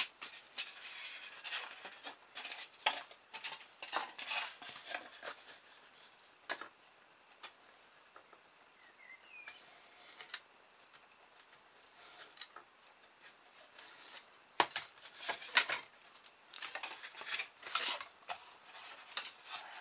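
Craft knife cutting thin polystyrene foam along a steel ruler: spells of short scratchy strokes over the first few seconds and again from about fifteen seconds in, quieter in between, with the ruler and foam being handled and one sharp click about six and a half seconds in.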